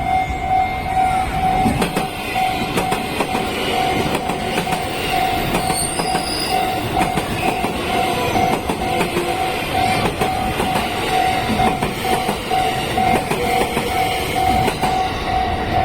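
281 and 271 series Haruka limited express electric train passing over a level crossing, its wheels clattering over rail joints with a steady rush of train noise. The crossing's warning bell keeps dinging in a quick, even rhythm over it.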